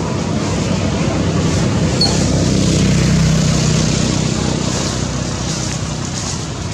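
Steady low rumble of a passing motor vehicle, with a faint engine hum, swelling to its loudest about three seconds in and then easing off.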